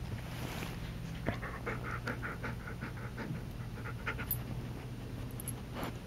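Shepherd puppy panting in quick, even breaths, about five a second, starting about a second in and fading after about four seconds.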